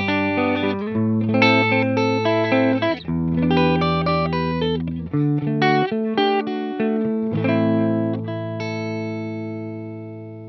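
Gibson Les Paul Special Doublecut electric guitar played through a Mesa/Boogie Mark Five:25 amp, strumming a run of chords. From about seven seconds in, a last chord is left to ring and slowly fade.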